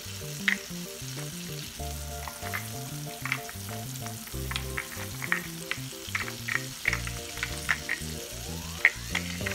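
Battered fish frying in hot grease: a steady sizzle with frequent sharp pops and crackles of spitting oil, over background music.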